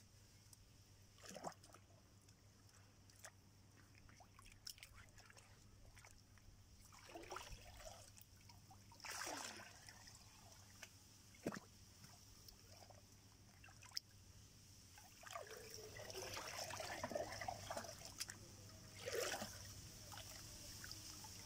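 Faint water trickling and splashing in short, scattered bouts, with a few sharp clicks between them.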